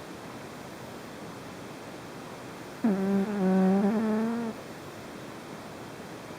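A single long snore with a clear pitch, starting about three seconds in and lasting about a second and a half, over a steady background hiss.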